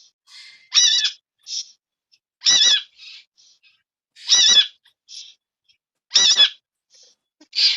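A parrot calling over and over: a short, high, wavering screech repeated about five times, roughly every two seconds, with softer chirps between the calls.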